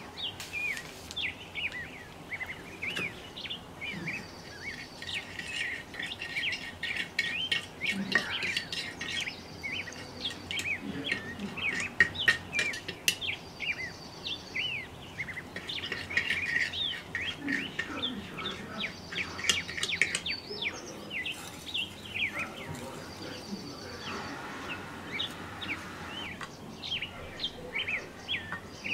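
Small birds chirping busily, many short chirps overlapping without a break, with a few light clicks mixed in.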